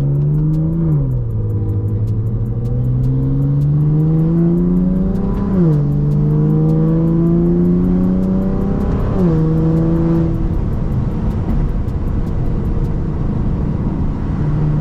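BMW F80 M3's S55 twin-turbo straight-six with a Valvetronic Designs equal-length exhaust, accelerating through the gears: the engine note climbs and drops at each upshift, about one, five and a half and nine seconds in, then holds steady at a constant speed.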